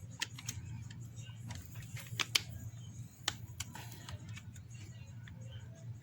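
Scattered small clicks and taps of an iPhone 7 display being fitted back onto the phone's frame by hand, over a low steady hum.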